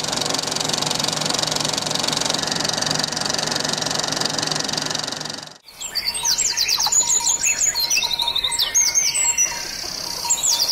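A steady, dense whirring noise runs for about five and a half seconds and cuts off abruptly. Songbirds then chirp and sing in quick repeated high trills and sweeping notes.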